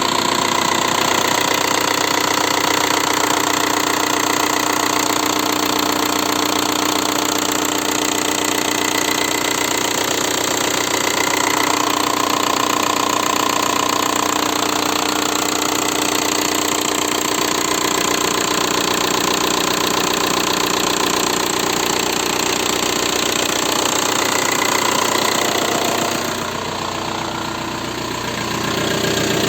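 Volkswagen 1.9 TDI four-cylinder turbodiesel engine running with a rapid knock, which the owner traced to worn hydraulic lifters and piston slap. The sound dips a little in level briefly near the end.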